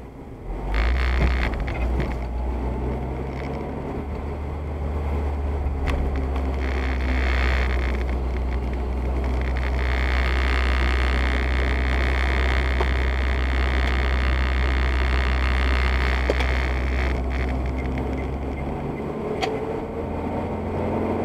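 Car interior driving noise heard from behind the windscreen on a wet road: a steady low engine and road rumble with tyre hiss from the wet tarmac. The rumble comes in about a second in, and the hiss swells through the middle and eases off near the end.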